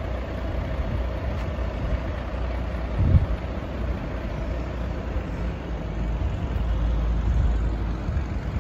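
Volvo FMX 460 truck's diesel engine idling steadily, with a single brief low thump about three seconds in.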